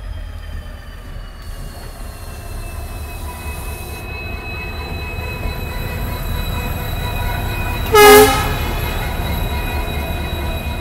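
WDP-4D diesel locomotive, a 16-cylinder two-stroke EMD engine, running light past on the adjacent track: a steady low rumble under a high whine that slides down a little in pitch and then holds. About eight seconds in it gives one short, loud horn blast.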